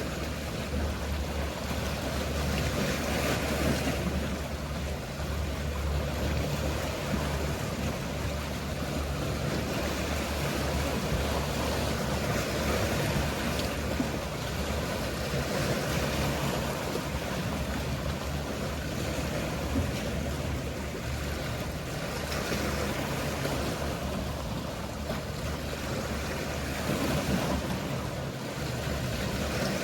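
Sea waves washing steadily, with the low, steady hum of a boat's engine underneath that fades somewhat in the last third.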